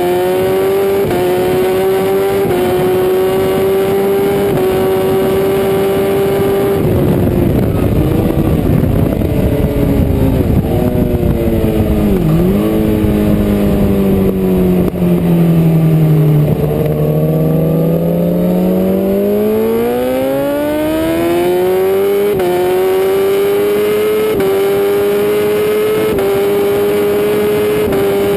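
BMW S1000RR inline-four race engine at high revs, then the throttle closes and the note falls steeply for hard braking into a slow corner, with two quick downshift blips on the way down. Out of the corner it pulls hard again, the pitch rising through the gears with a quick upshift every second or two.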